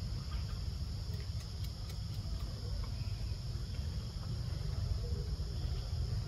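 Steady, high insect drone over a low rumble of wind on the microphone, with a few faint clicks between about one and two and a half seconds in.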